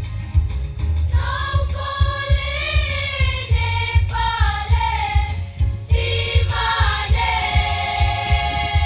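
Junior high school choir singing in parts over a backing track with a steady low beat. The voices come in about a second in, break off briefly just before the six-second mark, then resume and hold a long note near the end.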